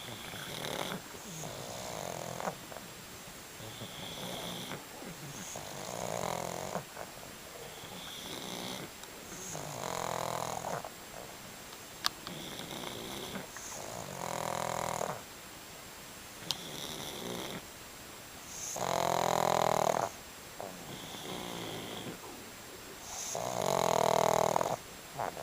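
A sleeping dog snoring in a slow, regular cycle, about one snore every four seconds, with a short high whistle between snores. The last two snores are the loudest.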